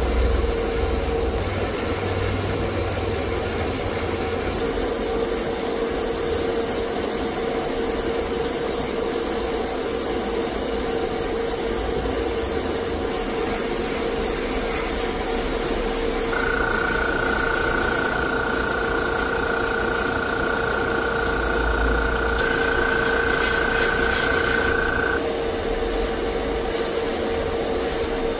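Airbrush spraying paint in a steady hiss, which drops out briefly a few times near the end. A steady hum runs underneath, and a higher whine joins for several seconds past the middle.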